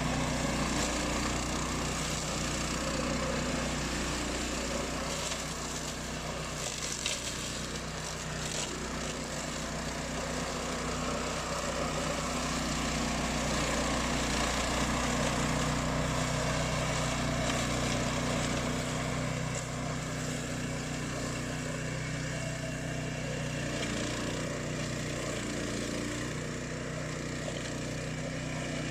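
Engine of a remote-controlled flail mower running steadily, with an even, low drone and a few faint clicks along the way.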